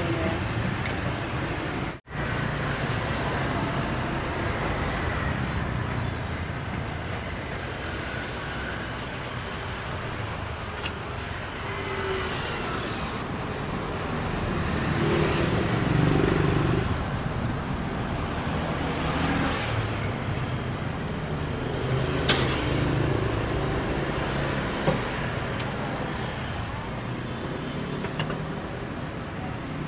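Steady street traffic noise from passing vehicles. It cuts out for an instant about two seconds in, and a couple of sharp knocks come about two-thirds of the way through.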